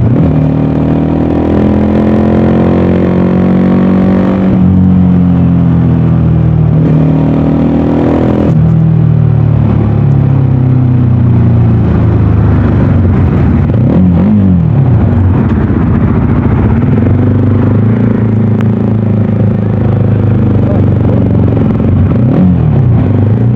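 VOGE 300DS single-cylinder motorcycle engine and exhaust running under way. Its pitch drops sharply at gear changes about four and eight seconds in, then dips and climbs again twice later on.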